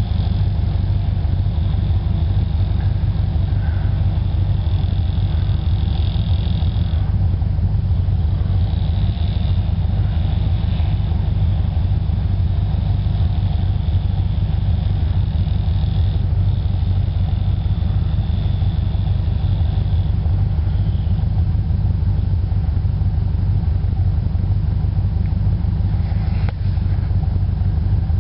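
Steady low rumble of a vehicle driving along a snow-covered road, engine and road noise holding an even pace throughout.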